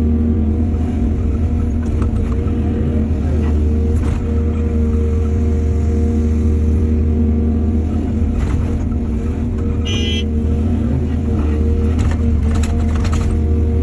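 Heavy diesel machinery running steadily, the engine drone unchanging, with a few sharp knocks and clanks and a short high squeak about ten seconds in.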